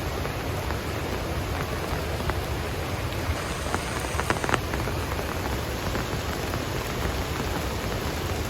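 Steady rush of the flooded, raging Chattooga River mixed with falling rain. A few sharp taps stand out about halfway through.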